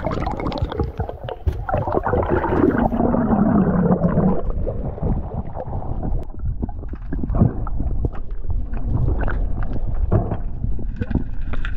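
Underwater sound picked up by a diver's camera: a muffled water rumble with crackling clicks and bubbling, and a gurgle that falls in pitch about two to four seconds in as the freediver swims over the reef.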